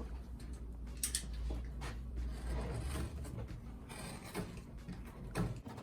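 MDF board being worked by hand: a few sharp wooden knocks with scraping and rubbing between them, over a steady low hum that drops out near the end. The work is on a frayed MDF edge that is thicker than the rest of the board.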